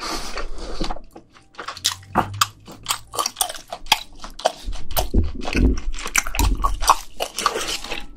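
A person biting and chewing a thick piece of grilled hanwoo (Korean beef) close to the microphones: a rapid run of short mouth clicks and smacks.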